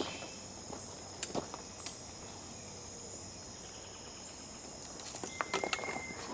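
Steady high-pitched drone of tropical insects, with a few scattered clicks. About five and a half seconds in, a single short held whistle sounds among a patter of small knocks.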